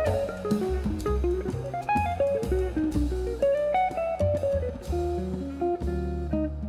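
Background music: plucked guitar melody over bass and a drum kit.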